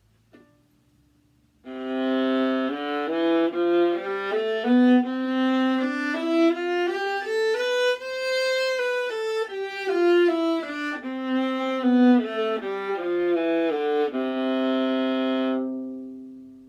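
Bowed viola playing a scale from the low C string, one note at a time, climbing to its top note about halfway through and coming back down, ending on a long low note that fades away. A rich, mellow sound.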